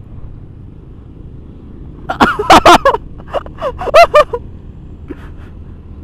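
Steady low rumble of a motor scooter on the move, engine and wind noise. About two seconds in, a voice calls out in a few short, loud bursts for around two seconds.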